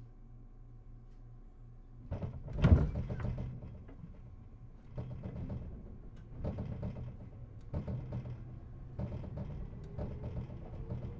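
Inside a JR East 211 series 3000-subseries electric train: a low steady hum while it stands, then about two seconds in the sliding doors close with a loud thud. A series of knocks follows, coming a little closer together each time, with a faint rising tone near the end, as the train starts to move off.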